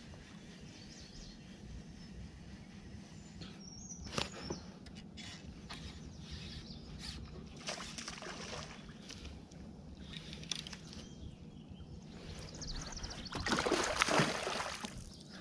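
Water sloshing gently around a fishing kayak while an angler casts and reels a baitcasting rod, with scattered short rustles of handling. A louder rustling burst comes about 13 seconds in, over a steady low hum.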